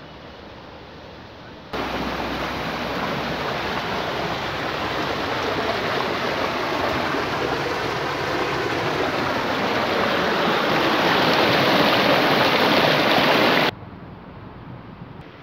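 River water rushing past boulders, a steady loud rush that cuts in suddenly about two seconds in and cuts off just as suddenly near the end.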